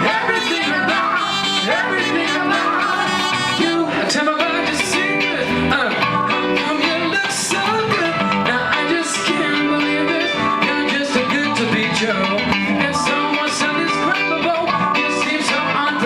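Music: guitar with a singing voice.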